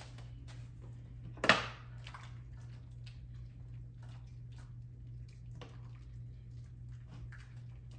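Pot and utensil handling: one sharp clank with a short ring about a second and a half in, then light scattered clicks and taps, over a steady low hum.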